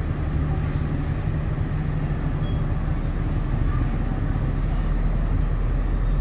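Diesel-hauled passenger train moving out of a station: a steady low rumble of the locomotive's engine and the rolling train.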